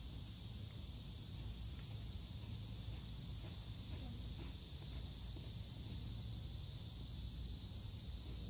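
High-pitched insect chorus buzzing steadily, growing a little louder about three seconds in.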